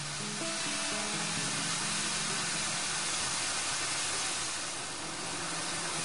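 A steady hiss with faint music underneath.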